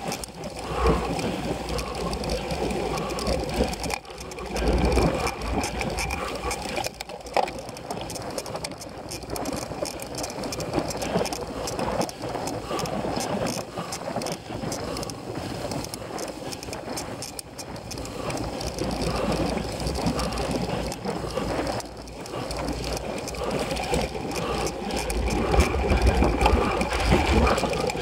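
Cyclocross bicycle ridden over rough, bumpy grass: a continuous rattling clatter of chain, drivetrain and frame, with low rumbling swells a few times, louder near the end.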